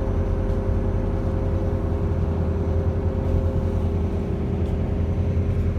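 A cruise boat's engine running steadily: a constant low drone with a couple of steady higher hum tones over it.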